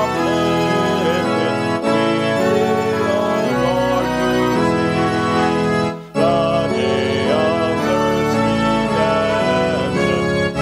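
Organ playing a hymn in sustained chords, with a brief break between phrases about six seconds in.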